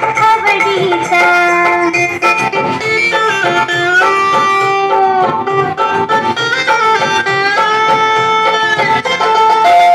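Loud music with a plucked-string melody over a steady repeating beat, the accompaniment to a group dance.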